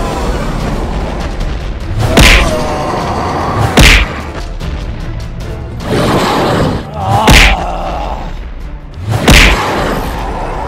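Cartoon fight sound effects over background music: four heavy impact hits, about two seconds in, near four seconds, past seven seconds and past nine seconds, with a short growl-like sound just before the third hit.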